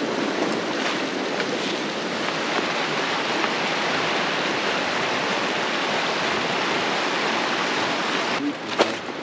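River water rushing steadily. Near the end the rush cuts off suddenly and a couple of sharp footsteps follow.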